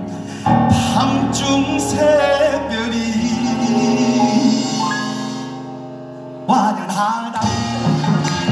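Korean traditional orchestra playing held notes, with a man singing pansori-style into a microphone. The music thins out after about five seconds and comes back in loudly about six and a half seconds in.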